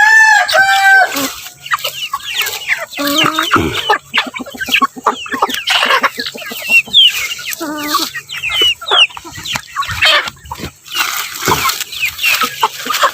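A flock of chickens clucking and calling at feeding time, many short overlapping calls and rising chirps. A rooster's crow trails off in the first second.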